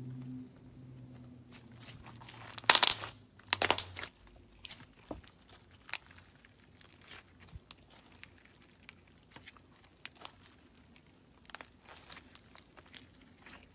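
Hands squishing and folding a fluffy clay slime packed with crumbly cookie-like bits, giving crackly, crinkly sounds. Two loud crackling bursts come about three and four seconds in, followed by soft scattered pops and clicks.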